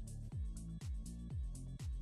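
Outro music with a steady beat: deep bass drum hits that drop in pitch about twice a second, with crisp hi-hat ticks above.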